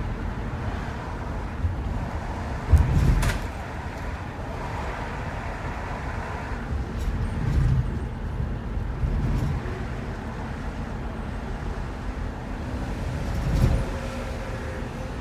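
Road noise from a shuttle van driving: a steady low rumble of engine and tyres. A sharp knock comes about three seconds in and another bump near the end.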